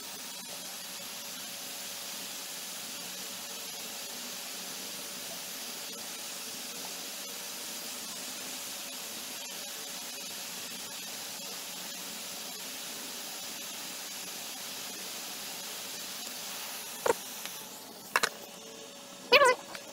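Hot air rework station blowing a steady hiss onto an iPhone 6 logic board to heat the NAND flash chip off. The hiss stops about seventeen seconds in, followed by a few sharp clicks.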